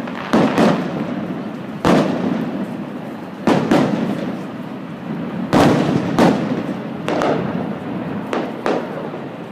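Aerial fireworks shells bursting: about ten sharp bangs at uneven intervals, several in quick pairs, each followed by a rolling echo that dies away.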